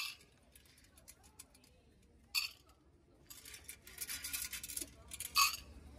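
An omikuji canister being shaken: wooden fortune sticks rattling inside a hexagonal metal box. There is a single clack about two seconds in, then quick rattling from about halfway, loudest just before the end.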